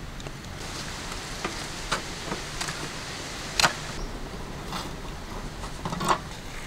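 Knife and hands working on a leather jacket fish, peeling its skin off. There is a run of short scrapes and rips at irregular intervals, the loudest a little past the middle.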